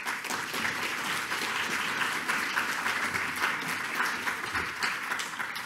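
Lecture-hall audience applauding a speaker at the end of a talk, steady clapping that starts suddenly and tapers off near the end.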